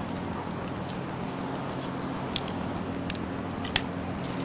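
Plastic wiring-harness clips and connectors on a Toyota 1GR-FE V6 clicking as they are worked loose by hand: a few short sharp clicks, the loudest a little before the end, over a steady low shop hum.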